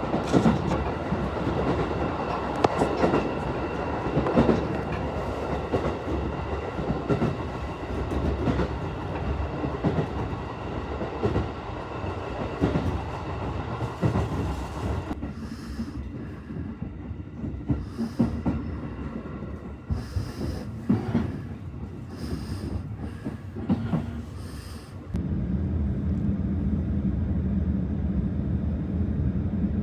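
Electric train in motion on the rails: running rumble and rail clatter. About halfway it thins out with scattered knocks, and near the end it settles into a steady low hum.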